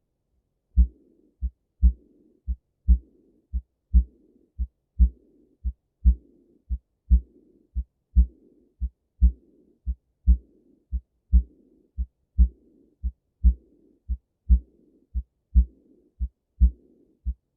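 Recorded heart sounds through a stethoscope: a steady lub-dub at about one beat a second, with a faint soft hiss trailing after the second sound. This is an early diastolic decrescendo murmur from aortic and pulmonary valve regurgitation.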